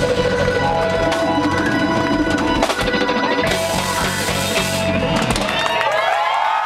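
Live funk band with a drum kit playing the close of a song; the band stops about five and a half seconds in, and a crowd cheers and whoops.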